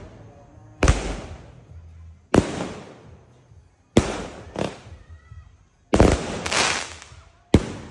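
A 25-shot firework cake firing: seven sharp bangs, about one every second and a half, two of them coming in quick pairs, each fading off in a hiss.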